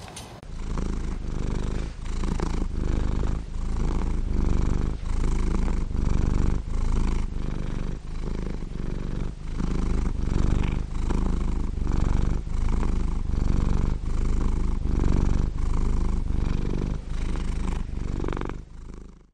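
Domestic cat purring loudly, in steady swells that rise and fall about once a second.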